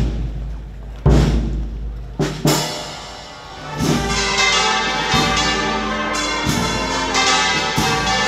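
A few loud thumps in the first seconds. Then, after a short lull, church bells ring from the bell tower: several bells sound at once, with a heavier stroke a little over once a second.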